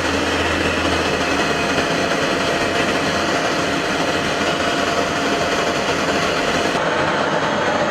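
Jet engine noise from an F-35A Lightning II's Pratt & Whitney F135 afterburning turbofan: a loud, steady rush of noise with no let-up.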